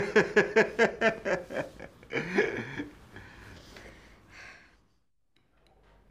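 Chuckling laughter and breathy voices that die away over the first four seconds or so. A short dead gap follows about five seconds in, then faint room tone with a few light taps.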